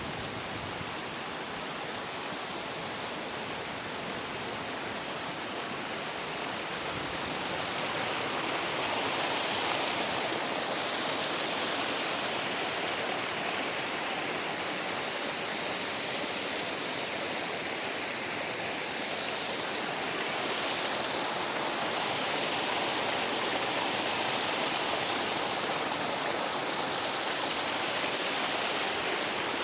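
Waterfall: a steady rush of falling and splashing water, growing somewhat louder about eight seconds in.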